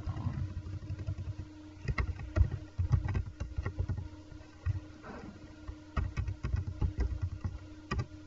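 Computer keyboard typing in irregular bursts of clicks with dull thumps, over a steady low electrical hum.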